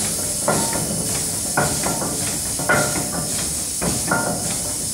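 A 12-by-10-inch steam hoist engine with open gears runs slowly while warming up. It gives a clank about once a second, each followed by a softer knock, over a steady hiss of steam.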